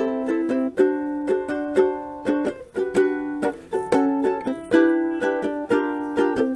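Instrumental music of strummed chords on a plucked string instrument, with repeated sharp strums and changing chords.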